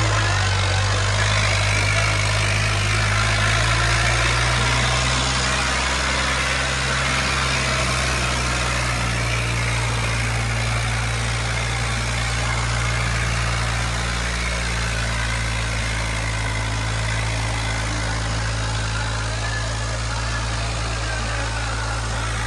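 Tractor's diesel engine running steadily at a constant speed.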